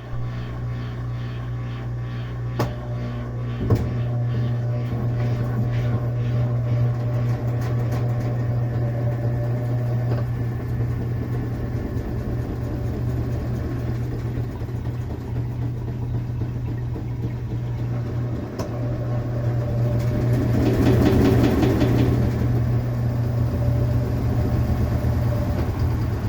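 Consul Facilite 8 kg washing machine in its spin cycle, making a loud, steady drone with a couple of sharp knocks in the first few seconds; the noise swells louder about twenty seconds in. The noise at spin got worse after the owner replaced the gear kit.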